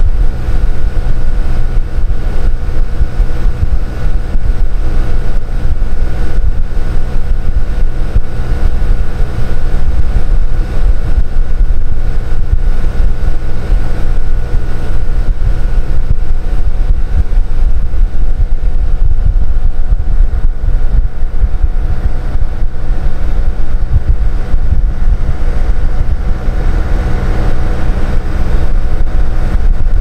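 Hitachi air-conditioner outdoor unit running loud: a steady hum from the compressor and fan with a fast, continuous rattling clatter. The uploader takes the noise for a fault in the unit.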